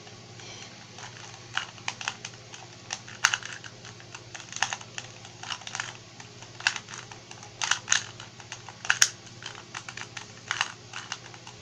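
Plastic 2x2 Rubik's cube being turned by hand: irregular clicking and clacking of the layers as they snap round, in quick runs with brief pauses between moves.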